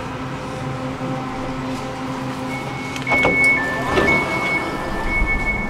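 Tram's electric drive humming steadily as it draws into a stop. About three seconds in comes a falling whine, followed by a repeated electronic beeping at two alternating pitches: the tram's door signal.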